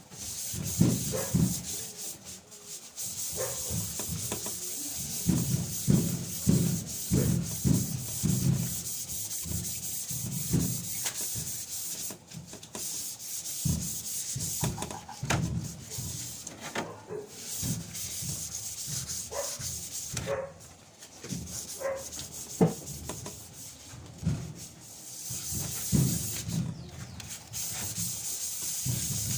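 Sanding on the sheet-metal casing of a washing machine: a steady abrasive hiss with repeated, uneven strokes and a few short pauses.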